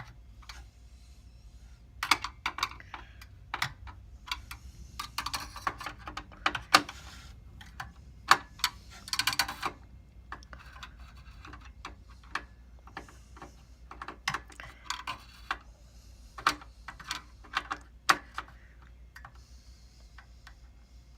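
Irregular clicks, knocks and short scrapes of metal and plastic parts being fitted by hand inside a Dell PowerEdge SC1430 server chassis as a CPU heatsink is installed, with a faint steady low hum underneath.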